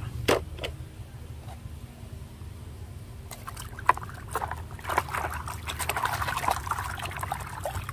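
Water splashing and sloshing in a plastic basin as a hand scrubs a small plastic toy car under the surface. The splashing starts about three seconds in and grows busier toward the end.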